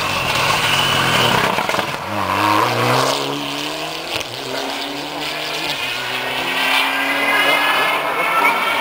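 Rally car's engine accelerating hard through the gears, its pitch climbing and dropping at each shift, then running on at high revs as the car drives away.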